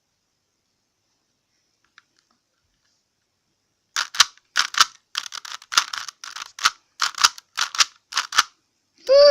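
Rubik's Cube layers being turned fast by hand: a quick run of plastic clacks, about three a second, starting about four seconds in after near silence. A voice breaks in right at the end.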